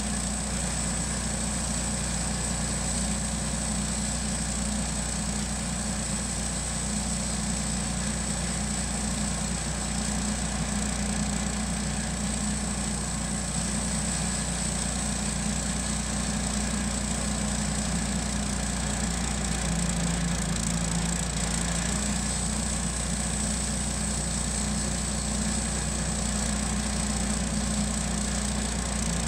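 Wood-Mizer LT10 portable band sawmill running steadily as its band blade cuts along a Douglas-fir log, with a constant high whine over the motor.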